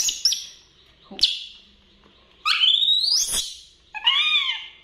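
Baby monkeys squealing: a few short, high squeaks, a longer rising squeal about two and a half seconds in, and an arched squeak near the end.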